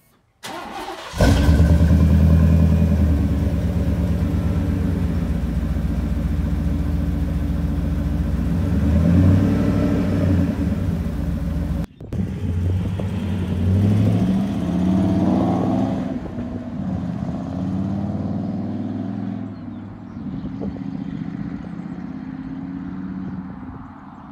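Cold start of an OBS Chevy pickup's 5.7 Vortec V8 through a Flowmaster Super 44 muffler, catalytic converters kept: the starter cranks briefly and the engine catches about a second in, then runs at a steady, loud fast idle. After a cut about halfway, the truck's exhaust is heard from the roadside, rising and then fading as it drives past.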